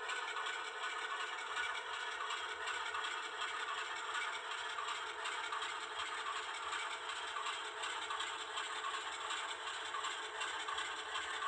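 HO scale model train, a diesel locomotive pulling gondolas loaded with scrap steel, rolling slowly along the track with a steady rattle and clatter of wheels and cars.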